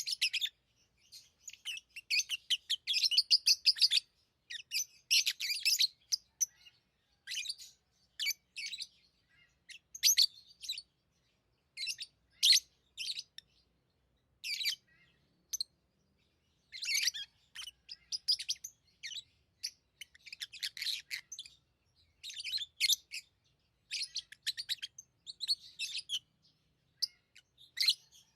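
Pet lovebirds chirping: high-pitched chirps in short, irregular bursts, with brief pauses between them.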